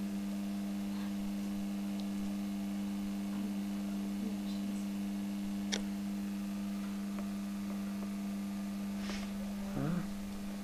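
Steady electrical hum: a constant low tone with a second, weaker tone above it, unchanging throughout. A faint click about six seconds in.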